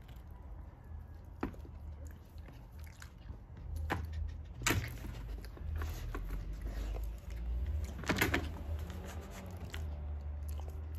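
A dog chewing raw chicken on the bone, with scattered wet chewing clicks and a few sharper crunches, the loudest about five seconds in and again about three seconds later.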